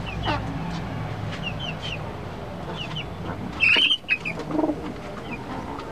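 Chickens settling on a roost perch: short high chirps and soft clucks, with one loud short squawk about three and a half seconds in, followed by a lower call.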